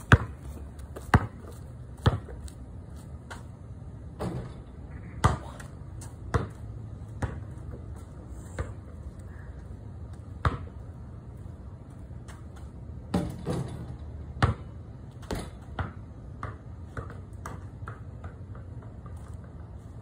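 Basketball bouncing on a concrete driveway: sharp slaps at uneven spacing, roughly one every second or two, with a cluster around the middle, over a steady low hum.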